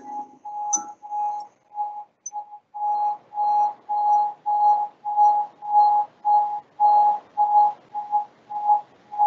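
Soundtrack of a slideshow video: one high electronic tone repeating in even pulses about twice a second, each pulse with a light hiss.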